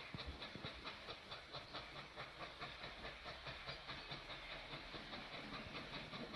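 Steam locomotive working under steam, its exhaust chuffing in an even rhythm of about four beats a second, with a steady hiss of steam.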